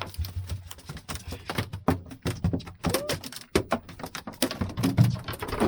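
Rapid, irregular slapping and knocking of a freshly caught mahi-mahi flopping on the boat deck, with a few short squeaks.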